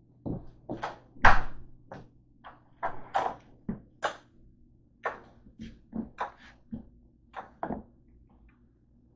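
A string of irregular knocks, thumps and clicks, the loudest about a second in: a handheld camera being carried and bumped while a door is moved, over a faint steady hum.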